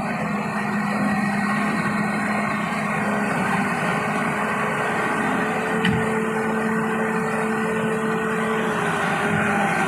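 Old excavator's engine running steadily under load while it handles a heavy balau log, with a held droning tone. A single short knock about six seconds in.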